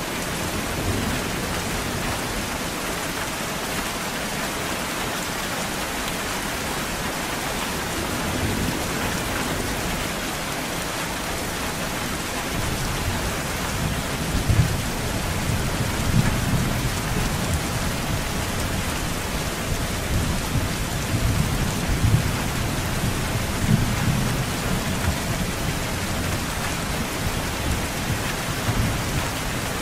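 Steady rain falling, with rolling thunder starting about halfway through and swelling several times into louder rumbles before easing near the end.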